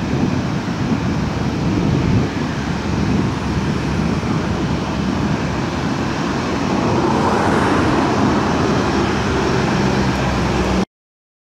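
Airbus A321neo's CFM LEAP-1A turbofan engines at takeoff thrust as the airliner lifts off and climbs away: a loud, steady jet rumble that grows brighter about seven seconds in. The sound cuts off suddenly near the end.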